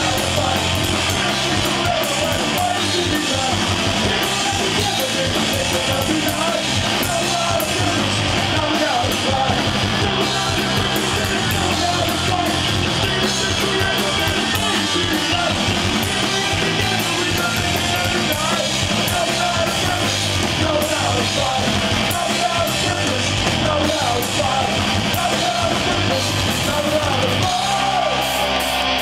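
Punk rock band playing live: distorted electric guitars, bass and drums driving under a shouted lead vocal.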